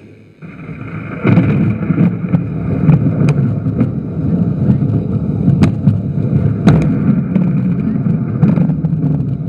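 Staged thunder-and-earthquake effect: a loud, continuous rumble that swells about a second in, with a few sharp cracks through it.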